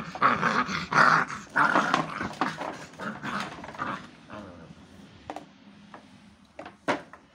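Pit bull puppies growling as they tug on a rope toy, loud and continuous for about the first four seconds, then fading. A few short sharp clicks near the end.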